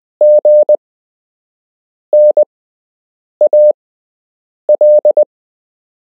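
A single steady Morse code tone sent on a key, beeping short and long elements. The beeps fall into four separate letters, each about a second and a half after the last.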